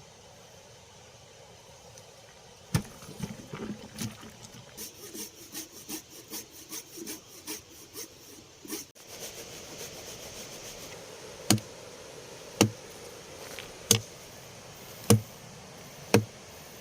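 A log being cut by hand: quick back-and-forth sawing strokes for several seconds, then five loud, sharp knocks on the wood about a second apart.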